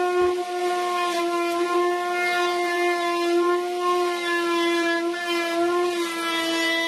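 A 3.25 HP plunge router in a router table running at full speed, a loud steady high whine as a drawer box is fed across the bit.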